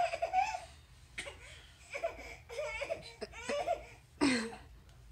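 Seven-month-old baby making a string of short, high-pitched squealing cries, with a louder one about four seconds in that falls steeply in pitch.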